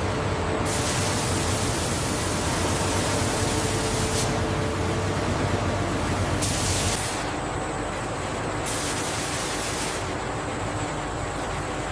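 Steady rushing noise with a low hum, changing abruptly several times and dropping slightly in level about seven seconds in.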